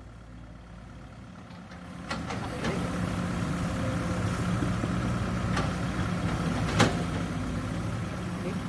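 Diesel engine of heavy farm or earthmoving machinery running, picking up and growing louder about two seconds in, with a few sharp knocks.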